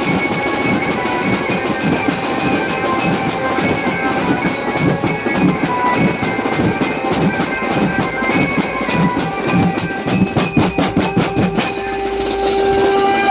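Loud, fast drumming from a Ganesh festival procession band, a dense, driving beat with a few sustained ringing tones above it. The strokes come closer together and hit harder about ten seconds in.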